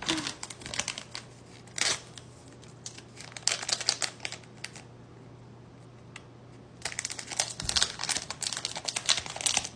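Small plastic packaging being handled and opened by hand: quick runs of crinkling and clicking plastic come in three spells, with a short pause between them.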